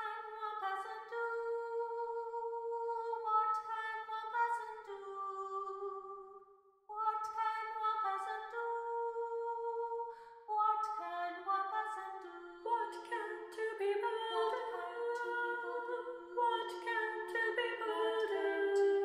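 A woman singing unaccompanied in slow phrases, with a short break about a third of the way in. About two-thirds of the way in, a second woman's voice joins her in a simple harmony.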